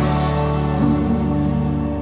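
Background music of held, sustained chords, with a change of chord just under a second in.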